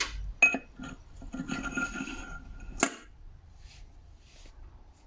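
Metal billet input-shaft insert being slid down into the hollow input shaft of a VW 02M gearbox: a few light clinks, then about a second and a half of metal scraping with a faint ringing, and a sharp clink near three seconds in as it goes into place, followed by faint ticks.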